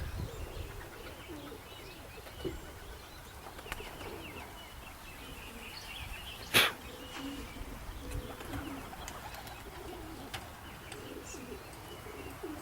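Pigeons cooing softly and repeatedly, with one sharp click about six and a half seconds in.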